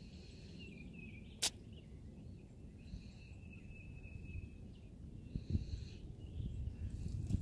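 Outdoor riverbank ambience: low wind rumble on the microphone, growing heavier near the end. One sharp click comes about a second and a half in, and a thin high steady tone is held for a second or two near the middle.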